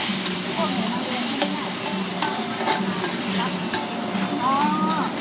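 Minced chicken and sauce sizzling in a hot wok while a metal spatula stirs it, with the spatula clicking and scraping against the wok now and then.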